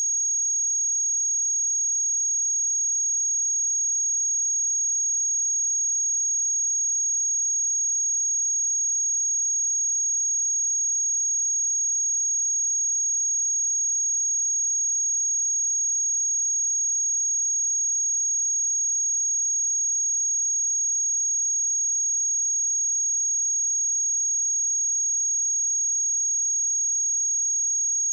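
A pure 6588 Hz sine-wave test tone, one steady high-pitched whistle held at constant level with no change in pitch.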